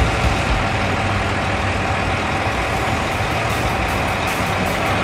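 Diesel engine of a concrete mixer truck running steadily as the truck drives along the street, mixed with general traffic noise.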